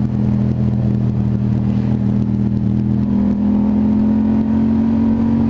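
Motorcycle engine running steadily at cruising speed, its pitch creeping up slightly in the second half as it picks up a little speed.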